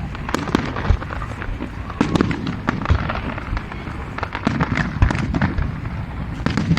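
New Year fireworks display going off: a rapid, irregular string of bangs and crackles, with several deep booms.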